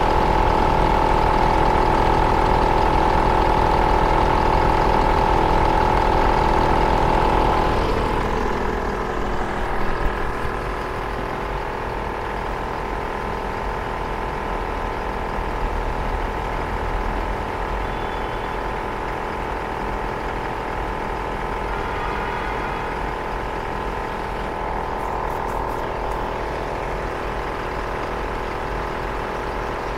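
Portable electric air compressor running steadily while inflating an SUV tyre through its hose. About eight seconds in, its pitch slides down and it gets quieter, then it runs on evenly at the lower pitch.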